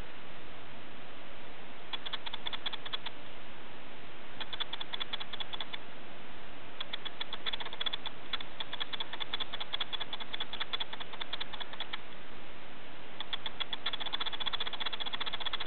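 Night insects calling in runs of rapid high clicking over a steady hiss. The clicking starts about two seconds in, comes and goes in stretches of one to several seconds, and is nearly continuous near the end.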